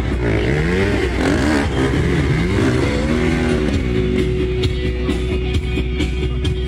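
Dirt bike engines revving in repeated throttle blips, the pitch rising and falling, as riders work through a tyre obstacle; after about four seconds an engine note holds steady.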